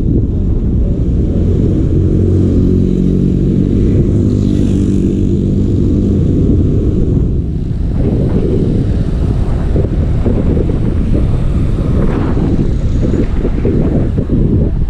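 Sport motorcycle riding at speed, heavy wind rushing over the bike-mounted microphone with the engine's steady tone underneath. The engine note holds even from about two to seven seconds in, and the wind rush goes on after.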